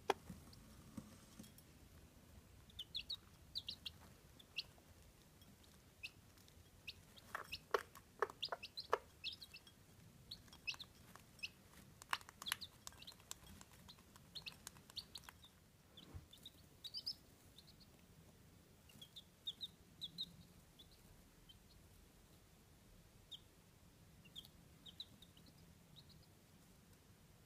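Chabo bantam chicks peeping, many short high cheeps scattered throughout, while a Chabo hen clucks a few times in a quick run about eight seconds in. Sharp little clicks of pecking at a ceramic feed bowl come around twelve seconds in.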